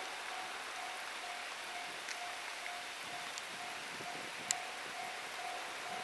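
Japanese level crossing alarm ringing, a single repeated electronic tone about twice a second, over a steady hiss of rain and wind. One sharp tick comes about four and a half seconds in.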